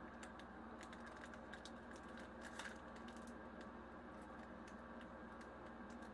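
Faint crinkling and crackling of a foil Pokémon booster pack wrapper being worked open and handled, the crackles thickest in the first half, over a low steady hum.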